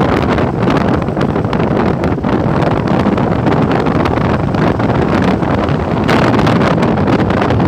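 Wind buffeting the microphone of a moving Yamaha NMAX 155 scooter, with the scooter's single-cylinder engine and road noise running steadily underneath. The rush turns brighter about six seconds in as the speed picks up.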